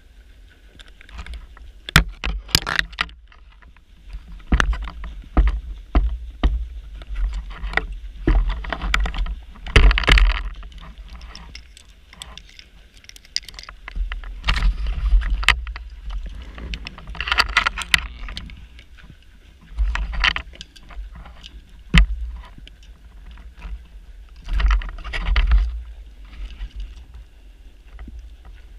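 A scuba diver breathing underwater: bursts of exhaled bubbles and regulator hiss come every few seconds, with a few sharp clicks of gear.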